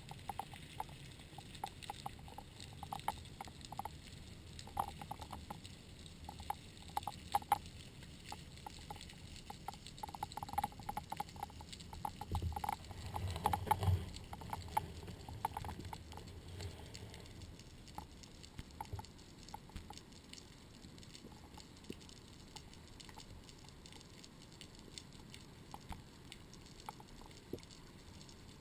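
Underwater sound picked up by a camera in its waterproof housing during a freedive: many faint, irregular clicks and crackles, with a low rumbling swell of water movement about twelve to fourteen seconds in. After that the clicks thin out to a quieter steady hiss.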